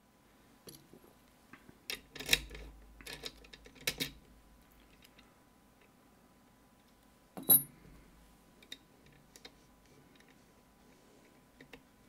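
Small metal clicks and rattles of lock picks and a tension tool being handled and worked into a pin-tumbler lock cylinder. There is a cluster of clicks in the first few seconds, then one sharper click about seven and a half seconds in, then a few faint ticks.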